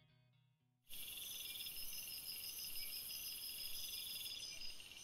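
Several insects chirping in high, rapidly repeated trills, starting suddenly about a second in after near silence.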